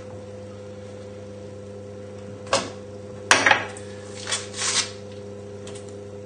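Steady electrical mains hum, with a few brief rustling, crinkling handling noises about two and a half to five seconds in as hands work a raw pork sausage and its packaging. One sharp clink comes a little after three seconds in.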